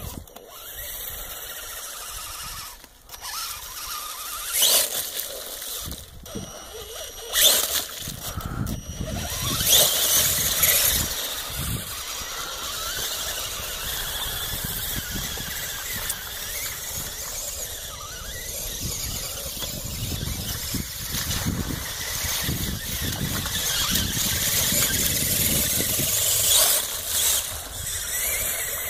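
RC Clodbuster monster truck driving through mud, its electric motors and gearboxes giving a high-pitched whine that surges louder several times in the first half as the throttle is worked.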